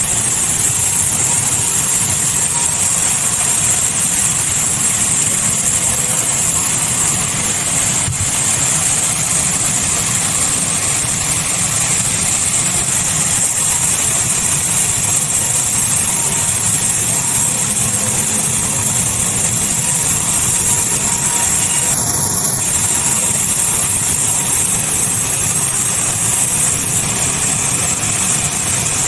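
Sawmill machinery running steadily: an engine-driven saw with a continuous high hiss over a low rumble.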